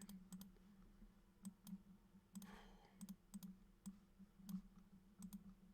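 Faint, irregular light clicks over a steady low hum.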